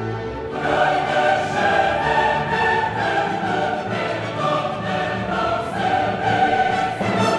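Background music with a choir singing over an orchestra, swelling fuller about half a second in.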